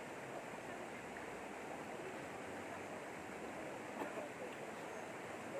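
Shallow rocky river flowing over stones and small rapids: a steady rush of water.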